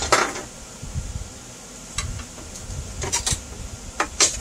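Sharp plastic clicks and taps as a cut half of a Onewheel GT's hard plastic fender delete is handled and pressed into place against the board, a cluster of them near the end, over a low steady hum.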